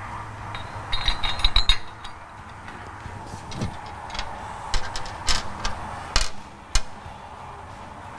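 Metal clinking and rattling as a steel axle strap is fitted by hand onto carriage bolts at the axle: a quick cluster of ringing clinks about a second in, then scattered knocks and taps from about five seconds in.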